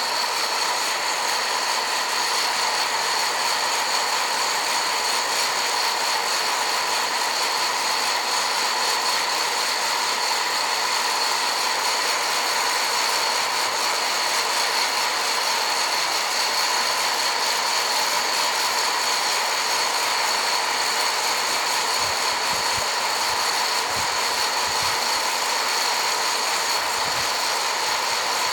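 Electric coffee roaster's fan running steadily mid-roast, a constant whirr with a high whine over hiss as hot air tumbles the beans.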